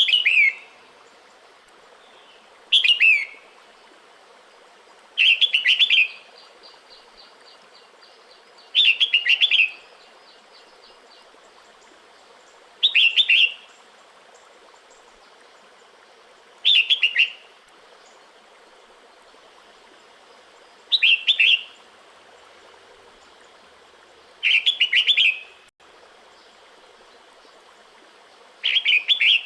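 Female red-whiskered bulbul calling: a short burst of quick, high notes about every three to four seconds, nine times. It is the female's breeding-season call to males.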